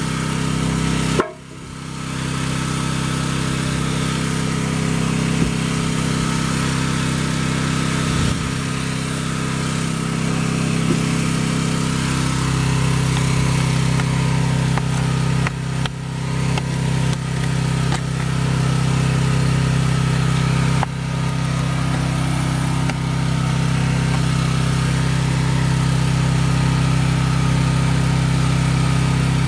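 Engine-driven high-flow hydraulic pump running steadily to power the pipe-bursting puller, with a brief drop in level about a second in.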